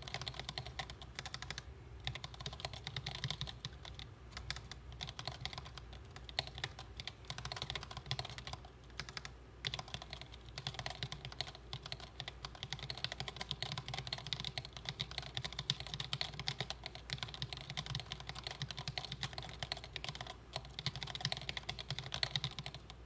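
Typing on a Planck 40% ortholinear mechanical keyboard with Gateron Yellow linear switches: a fast, continuous run of keystroke clicks, with a couple of brief pauses.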